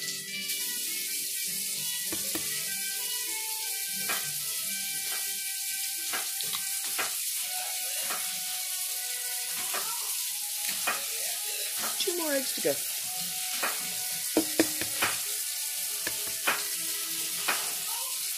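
A steady hiss under scattered light clicks and taps of kitchen handling, with eggshells being cracked over a well of flour near the end.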